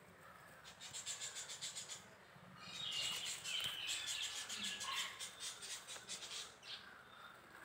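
Small birds chirping: a rapid run of high, fast-repeated notes about half a second in, then a longer stretch of high chirps and twitters from about three to six and a half seconds in.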